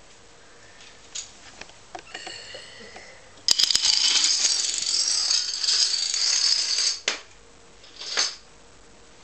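Plastic toy dominoes toppling in a chain. A few scattered clicks give way, about three and a half seconds in, to a dense, rapid clatter as a long run falls. The clatter stops abruptly about seven seconds in, and one more short clatter follows near the end.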